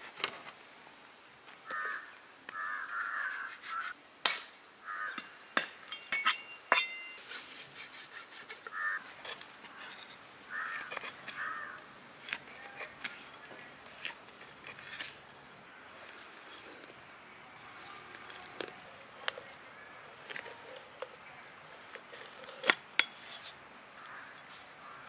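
A large knife cutting and tapping through a whole fish onto a wooden stump chopping block, sharp knocks at irregular intervals as the fish is scored. Crows caw in short bursts in the background several times.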